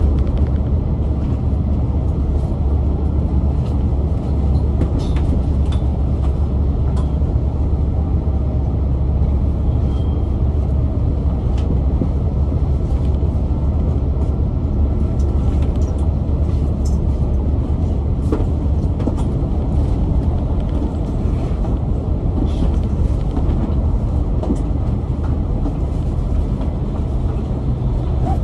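Cabin of a Volvo B8L double-decker bus running steadily: a low drone from its Volvo D8K-350 diesel engine together with road noise, with scattered faint clicks and rattles.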